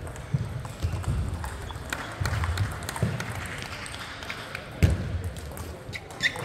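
Table tennis rally: the celluloid-type plastic ball clicking sharply off the bats and table, with players' footsteps thudding on the court floor. One louder knock comes about five seconds in.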